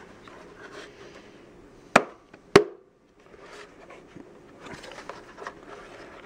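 Plastic motor housing of a Bissell compact vacuum being handled and worked together by hand, with light rubbing and scraping. Two sharp plastic knocks come about two seconds in, about half a second apart.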